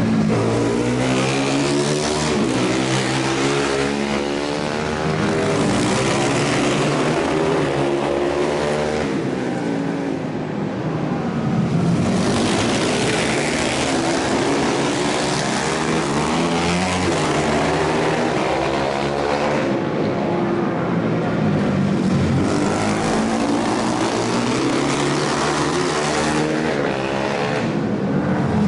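Racing motorcycles passing at speed, several engines running hard together, their notes rising and falling again and again as the bikes accelerate, shift and go by. The sound is loud and unbroken.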